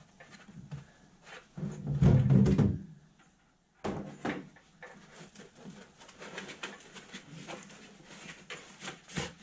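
Handling sounds: clicks and rubbing as packing foam is worked out of a 3D printer, with a louder, low-pitched rubbing sound lasting about a second around two seconds in.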